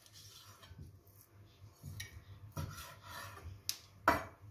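Knife slicing raw roe deer tenderloin thinly, with a few sharp knocks of the blade; the loudest comes about four seconds in.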